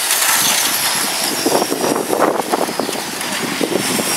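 Electric R/C sportsman race trucks with 17.5-turn brushless motors running laps around the oval, their motors whining at a high pitch.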